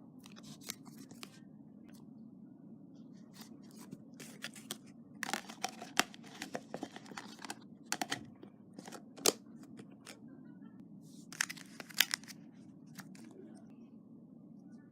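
Slime being squeezed and stretched by hand, giving scattered sticky crackles and pops, in two busier clusters about a third of the way in and again near the end.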